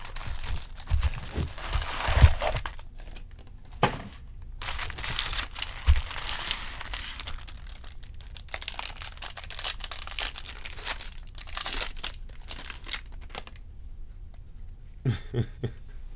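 Foil trading-card pack wrappers being torn open and crinkled by hand, with stretches of tearing hiss broken by sharp crackles and small knocks.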